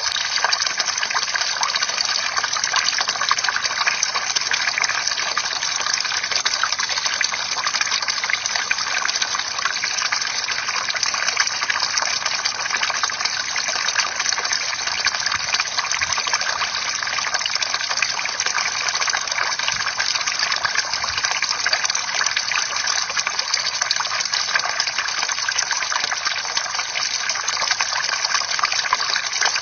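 Water from a bamboo fountain spout splashing steadily and continuously into water below.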